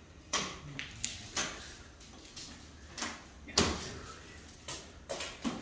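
Irregular knocks and clunks of interior renovation work, about seven sharp hits spaced unevenly, the loudest a little past halfway.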